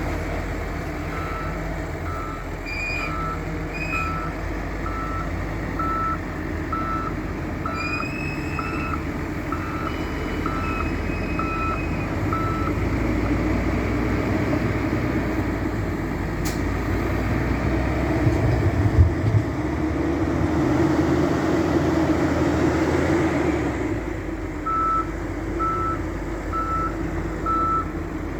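Diesel engine of a heavy wheel loader or dump truck running, with a reversing alarm beeping about once a second. Midway the beeping stops and the engine runs louder for about ten seconds, then the beeping starts again near the end.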